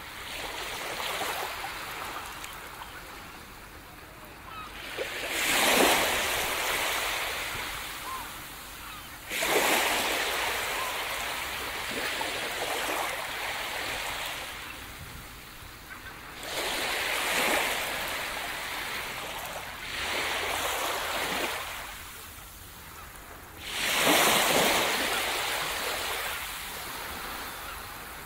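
Gentle surf: small waves breaking and washing up a sandy beach, five times, each swelling into a hiss and then fading away.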